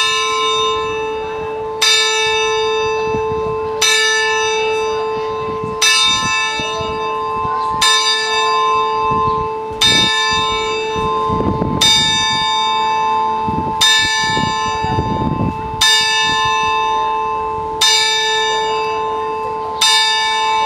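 A bell of a building-facade carillon clock tolling the hour: one identical stroke about every two seconds, each stroke left ringing and overlapping the next.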